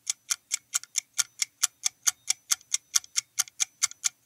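Clock-tick countdown timer sound effect: a steady, even ticking, about four to five ticks a second, counting down the time to answer.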